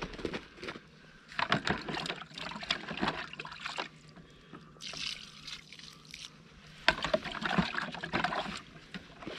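Hands mixing damp fishing groundbait in a container: two spells of wet, crumbly rustling, with a brief hiss between them.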